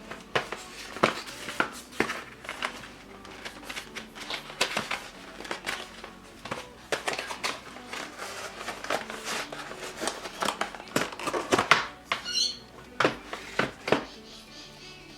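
Unboxing handling: a keyboard's packaging crinkling and rustling, with frequent irregular clicks and taps, over faint background music.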